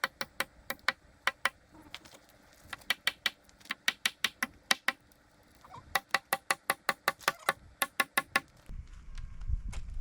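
Sharp mechanical clicks in quick, even runs of about five a second, three runs with short pauses between, followed near the end by a low rumble.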